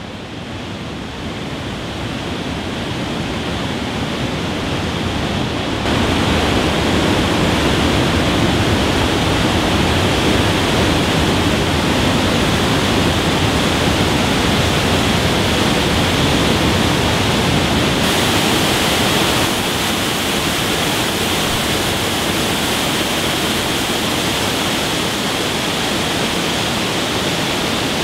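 Waterfall's rushing water, a steady noise with no pitch to it. It grows louder over the first six seconds, then holds steady.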